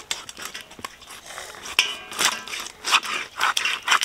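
A boti blade crunching through a whole bhetki (barramundi) as the fish is pressed down onto it behind the head, cutting through scales and bone. A run of short, sharp crunches that come thicker and louder from about halfway through.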